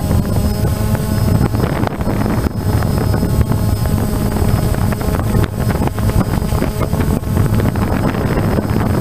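Quadcopter drone's electric motors and propellers running steadily, picked up by the camera on the drone itself, with wind buffeting the microphone.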